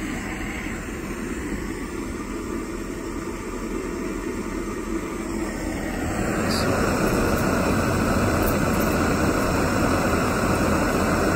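Jetboil stove's gas burner running, a steady rushing flame noise under the cooking cup; it grows louder about six seconds in.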